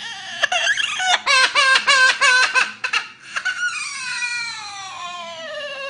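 A parrot mimicking a crying baby: a quick run of short sobbing cries, about five a second, then about halfway through one long wail that slides steadily down in pitch.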